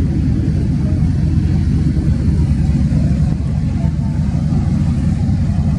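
Boat engine running as a steady low rumble.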